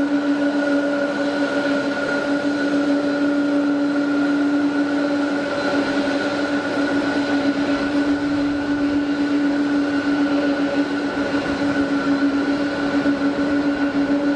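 Jet airliner engines running steadily at airport ground level: a constant hum with a few unchanging tones over a rushing noise, neither spooling up nor down.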